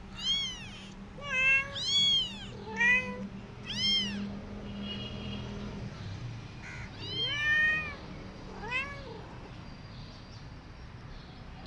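Young kittens meowing: about eight short, high mews that rise and fall in pitch, a run of them over the first four seconds and another few between about seven and nine seconds in.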